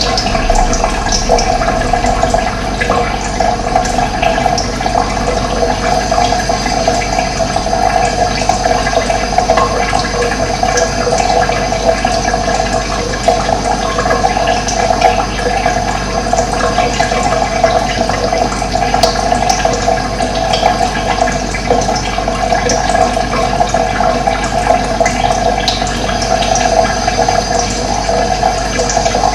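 Running water, a steady rushing flow.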